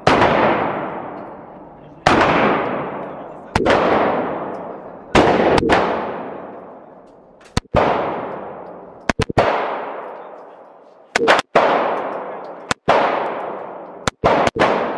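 Handgun shots fired at a steady pace, about ten in all, roughly one every one and a half seconds, each followed by a long echo that rings down the indoor range's concrete lane.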